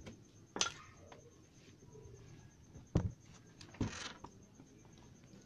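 A few light, separate knocks on the wooden wardrobe, about a second in and again around three and four seconds, with faint scraping handling sounds between them.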